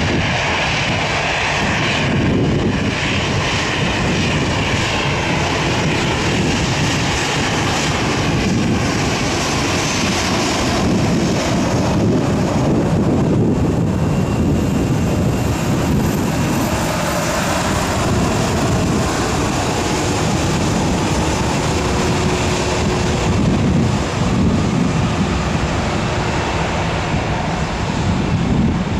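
Jet airliner engines, a loud steady rush of noise that holds through the whole stretch.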